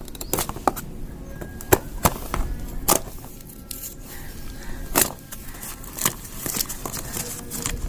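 Hands unpacking and handling a newly delivered ice cream scoop: plastic packaging crinkling, with a scatter of sharp clicks and knocks, the loudest a few seconds in.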